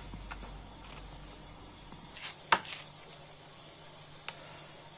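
Steady high chirring of crickets, with faint scattered clicks as hands work seasoning into a fish in a plastic basin, and one sharp click about halfway through.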